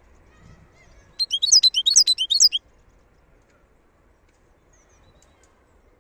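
Wild European goldfinch singing: one quick burst of high, rapid twittering notes, starting about a second in and lasting about a second and a half.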